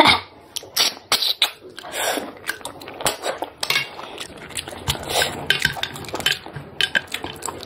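Cooked snail shells clicking and clinking against a ceramic plate as fingers pick through them, in many short irregular clicks.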